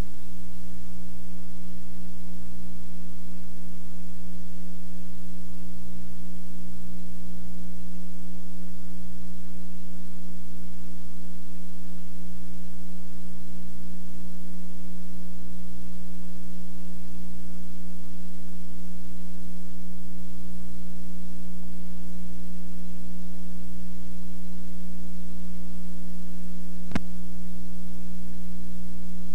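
Steady electrical mains hum on a blank stretch of videotape: a low buzz with several fainter steady tones above it, over faint tape hiss. A single sharp click comes near the end.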